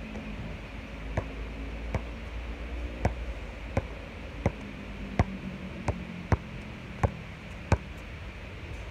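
Basketball bouncing on a hard outdoor court, a short sharp bounce about every 0.7 seconds, with a steady background hiss.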